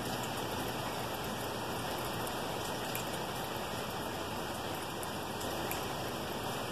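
Steady, even hiss like falling rain, with faint scattered ticks.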